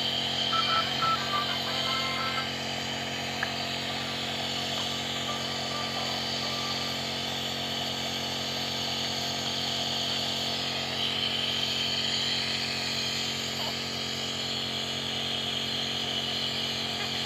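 Compressor nebulizer running: a steady motor hum under a constant hiss of air and mist.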